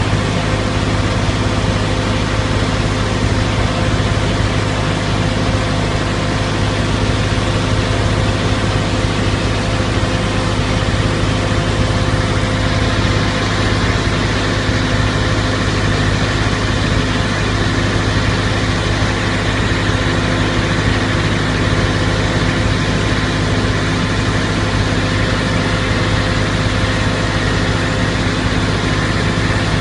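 Vacuum sewage tanker truck running steadily while its engine-driven vacuum pump sucks out a grease separator through its hoses: a constant low hum with hiss on top. The hiss grows a little stronger about twelve seconds in.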